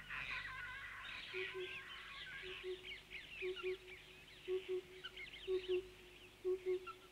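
Small birds chirping, with a low double hoot that repeats about once a second.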